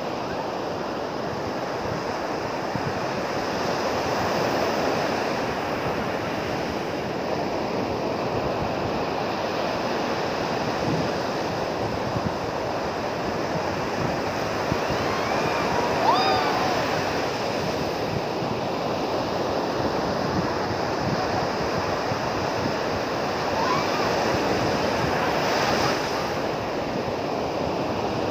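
Ocean surf breaking and washing up on the beach, swelling louder as bigger waves break, with wind rumbling on the microphone. A brief distant cry about halfway through.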